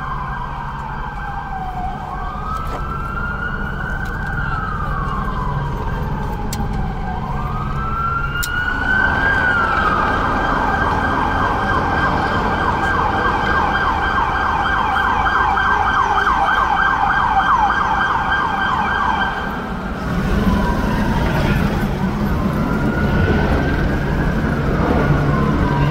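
Emergency-vehicle siren sounding a slow wail that rises and falls, switching about nine seconds in to a fast yelp for about ten seconds, then going back to the wail. A low rumble runs underneath.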